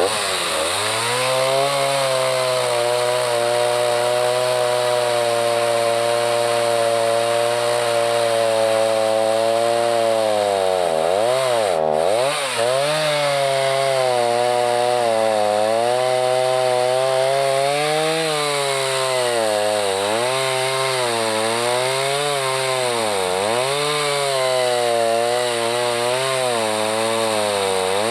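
Two-stroke chainsaw running at speed and cutting wood. Its pitch holds steady at first, sags sharply twice about halfway through, then dips and recovers again and again as the chain is loaded in the cut.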